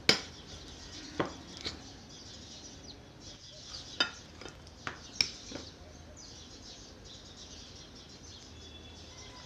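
A metal spoon clinking against a china bowl while butter cream is stirred: a loud clink right at the start, then about six more sharp clinks over the next six seconds, after which only a faint background remains.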